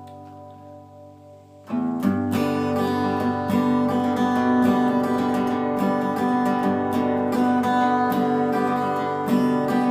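Acoustic guitar: a chord rings and fades, then about two seconds in steady rhythmic strumming begins, the instrumental opening of a bluegrass-style song.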